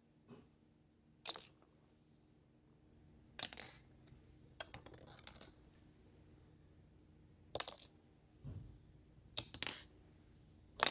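Fidget toys being handled, making separate sharp clicks and short rustles every second or two, with a dull knock about eight and a half seconds in.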